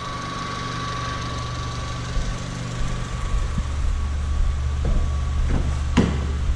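Honda Civic's four-cylinder engine idling steadily, warming up after a thermostat replacement so the refilled cooling system can bleed. A steady high tone fades out about five seconds in, and a few short knocks sound near the end.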